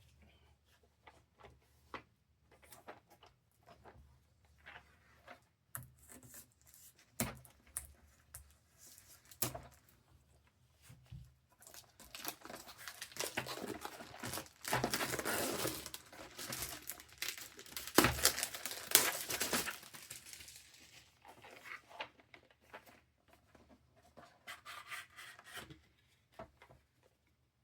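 Unboxing handling noises: scattered light clicks and taps, then several seconds of plastic packaging rustling and tearing in the middle, with a couple of sharp clicks near its end.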